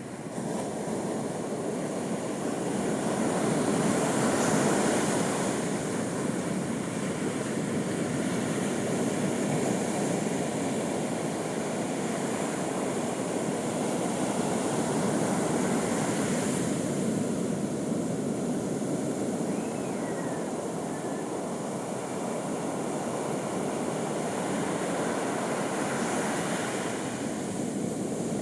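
Sea waves breaking on a beach: a steady rush of surf that swells as each wave breaks, roughly every ten seconds.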